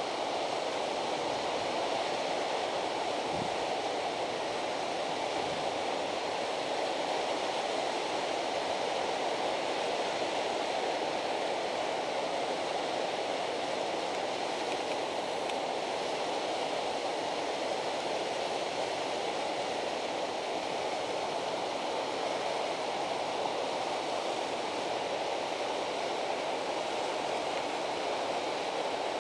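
Steady, even rushing of flowing river water.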